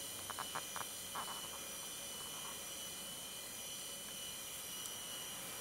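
A steady chorus of insects, with a few short clicks and a brief rustle in the first second and a half.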